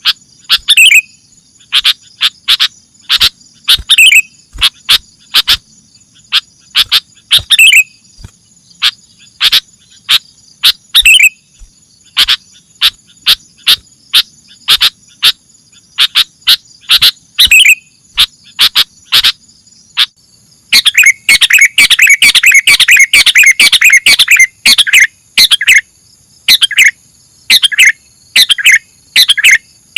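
Sooty-headed bulbul (kutilang) singing a string of short, loud whistled calls, breaking into a rapid chattering run about two-thirds of the way through. A steady high insect buzz runs behind it.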